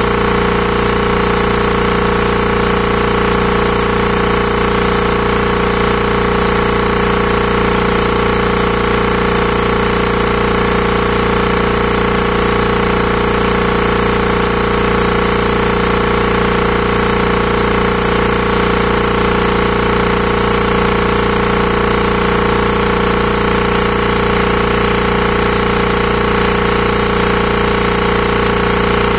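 Hatlapa W 220 reciprocating air compressor running steadily under test, a loud even machine drone with several steady tones and no change in speed or load.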